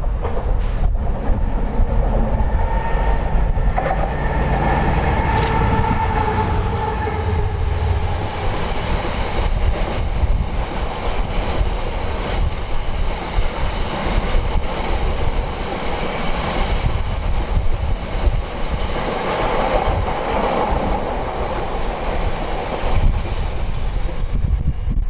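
Train passing along the line, running noise steady throughout, with a whine from about three seconds in that fades by about eight seconds. Wind buffets the microphone with a low rumble.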